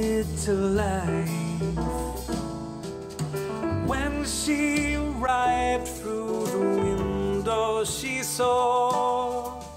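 A pop song with a melodic lead played back through a pair of JBL 104 studio monitors and picked up by a room microphone; late in the stretch the playback switches to a pair of KRK Rokit 5 G4 monitors.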